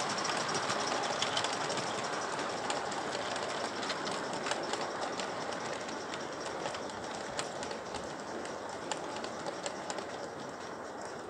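Gauge 1 model train's wagons and coaches rolling along the track: a steady rolling rumble of wheels on rail with irregular sharp clicks, fading as the last coaches move away.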